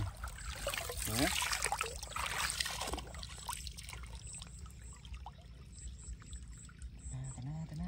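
Shallow pond water splashing and sloshing as a hand and a woven fishing basket are pushed through it, loudest in the first three seconds and fainter after that.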